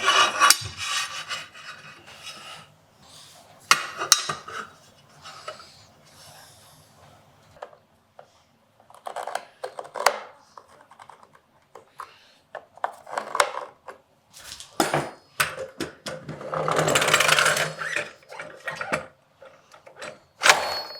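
Hand-tool work on wood at a workbench: scattered knocks, clicks and short scraping strokes. About two-thirds of the way in comes one long, loud rasping stroke, the loudest sound here.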